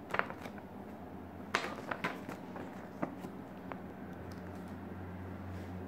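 A few short crackles and taps of a paper photo cut-out being handled, over a steady low hum.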